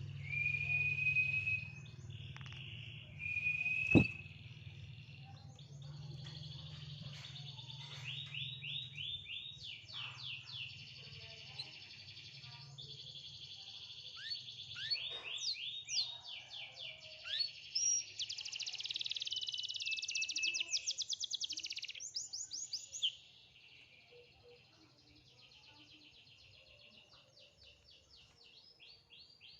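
Domestic canary singing a long, varied song of fast trills and rapidly repeated rolling notes, growing fainter after about twenty-three seconds. A single sharp click sounds about four seconds in.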